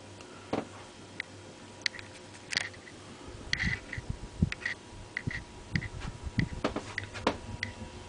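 Hunter R-52 ceiling fan running with a faint steady hum and a light tick repeating about every two-thirds of a second. From about three seconds in, low thumps and rumbles and a few sharper knocks come in.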